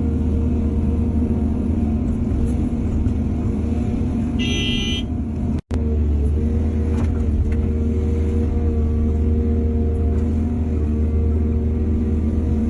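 Heavy diesel engine of earth-moving machinery running steadily under work, with a brief high-pitched tone about four and a half seconds in. The sound cuts out for an instant a little past the middle.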